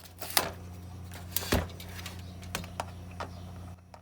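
Hand tools clicking and knocking against the metal and plastic parts of a small lawnmower engine as its cover screw is worked loose: scattered sharp clicks, the loudest knock about a second and a half in, over a low steady hum.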